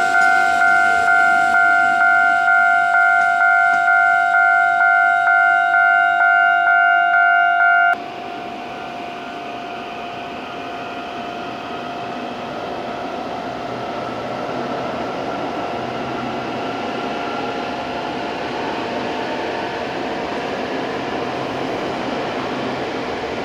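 Level-crossing warning signal ringing, an electronic two-tone chime repeating about two and a half times a second, which cuts off suddenly about eight seconds in. A train then runs past with steady wheel-on-rail noise that grows louder.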